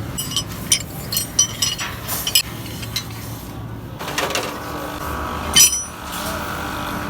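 Light metal clinks and taps from tools being handled, a quick scatter of them in the first couple of seconds and a sharper one about five and a half seconds in, over a low steady hum.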